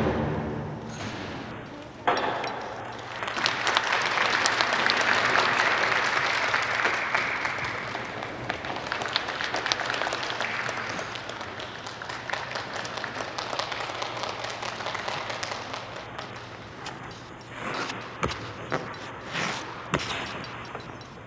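Audience clapping in an ice rink at the end of a figure-skating program. The clapping swells about two seconds in and fades away over the next ten seconds or so, with a few separate louder knocks near the end.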